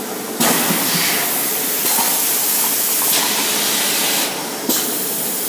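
EPS foam cup making machine letting out a loud, steady hiss that starts about half a second in, drops away briefly near the end, then comes back, over the machine's lower running noise.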